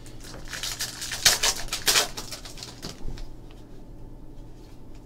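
A foil trading-card pack crinkling as it is picked up and torn open: a dense rustle for about two seconds, followed by softer shuffling of the cards.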